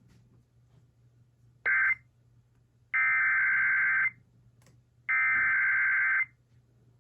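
Emergency Alert System SAME header data bursts: harsh, buzzing digital tones sent in three bursts, the first brief, the next two about a second each with a second's gap. They are the coded header that opens a severe thunderstorm warning alert.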